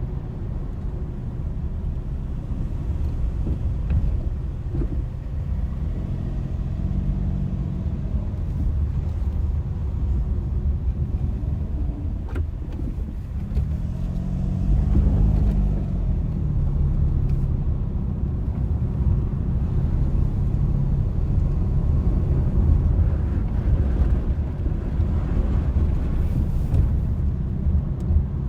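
Car driving on the road: a steady low rumble of engine and road noise, with the engine note rising and falling twice, briefly around six seconds in and more strongly around fifteen seconds in.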